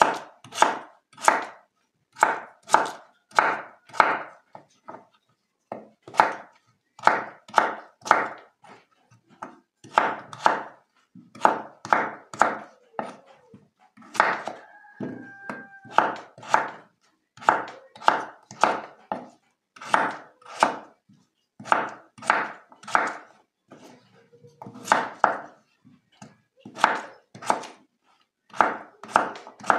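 Kitchen knife dicing peeled potatoes on a wooden cutting board: the blade knocks against the board about two to three times a second, in runs of strokes with short pauses between them.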